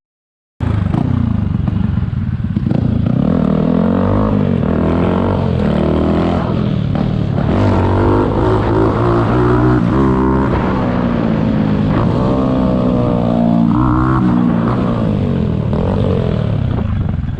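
Yamaha MT motorcycle engine running under way, its pitch rising and then dropping again several times as it accelerates and changes gear. It comes in after a brief gap of silence at the start.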